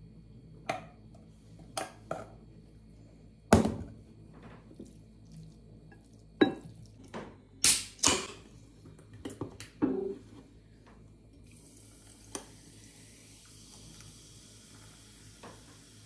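Kitchen clatter: a string of knocks and clinks from a pot and plate and ice cubes dropped into a tall drinking glass. From about two-thirds of the way through, a steady fizzing hiss of cola poured over ice and coffee in the glass.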